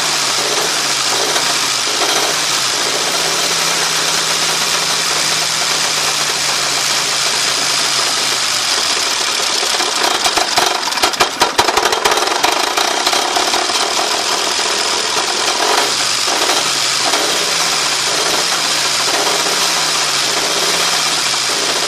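1935 Austin Seven Nippy's four-cylinder side-valve engine running steadily, with a low hum that wavers up and down. Partway through comes a louder burst of rapid clicking and rattling, the noise from the front of the car that the owner is chasing.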